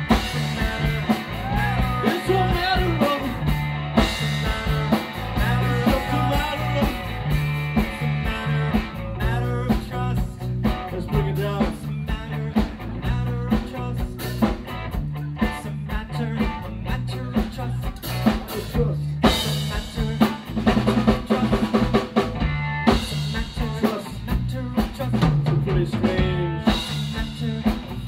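Rock band playing a song: drum kit, guitar and a singing voice over a repeating bass line.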